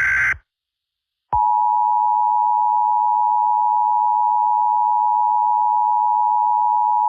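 Emergency Alert System signal: a short data-header burst ends just after the start, then a second of silence. About a second and a half in, the steady two-tone attention signal starts and holds one unchanging tone.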